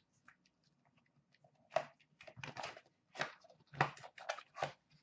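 A small cardboard trading-card box being picked up and opened by hand: a string of short rustles and taps that starts about two seconds in.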